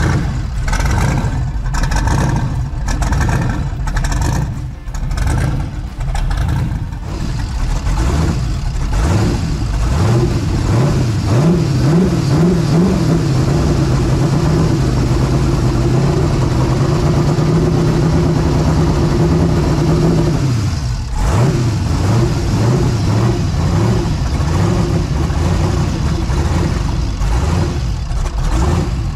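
Twin-turbo LS V8 idling with a lumpy, big-cam-sounding note. About ten seconds in it is revved up, apparently by hand at the throttle, and held at a steady higher speed for about ten seconds, then drops back to the choppy idle. It runs 'a little mad', which the owner cannot explain and suspects is a dead air-fuel sensor reading lean.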